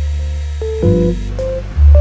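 Background music: a melody of separate pitched notes over a deep bass line, with a new note or chord every half second or so.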